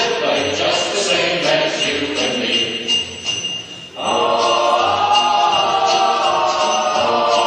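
Festive music with jingle bells and singing voices. It drops away briefly about three seconds in and comes back fuller about four seconds in, with long held notes.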